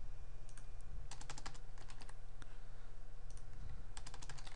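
Computer keyboard keys tapped in several short quick runs, over a steady low hum.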